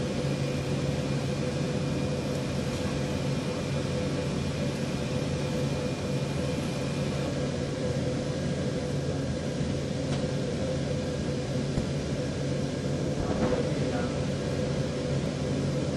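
Steady machinery hum: a low drone with a fainter higher whine and an even background noise that does not change.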